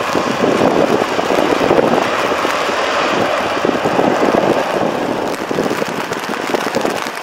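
Boeing 737's jet engines at takeoff power on a wet runway: a steady rushing roar, with wind buffeting the microphone. The roar eases off slightly over the last couple of seconds.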